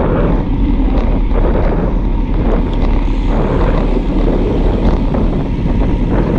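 Loud, steady wind buffeting on the microphone of a bicycle-mounted camera while riding at speed on a road bike.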